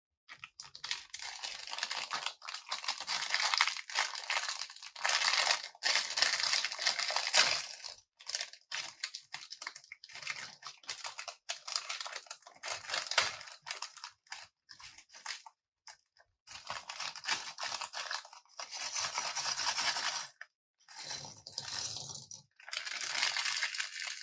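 A clear plastic parts bag crinkling and tearing in gloved hands, in short irregular bursts of crackle, with the plastic bricks inside rattling and clicking as it is opened and emptied.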